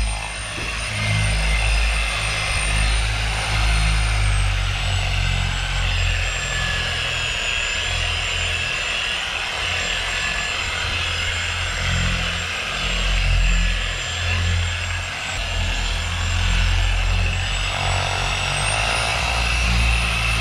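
Electric variable-speed polisher with a wool pad buffing compound into boat gelcoat: a steady motor whine over a low rumble. The whine dips slightly about four seconds in and rises again near the end as the speed is turned up a notch.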